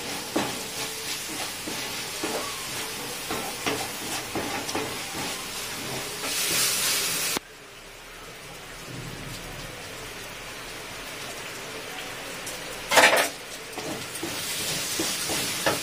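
Spiced masala frying in oil in a steel kadai, sizzling, with the clicks of a wooden spatula stirring against the pan. About seven seconds in the sound drops abruptly to a fainter hiss, and there is a sudden loud crackle near the end.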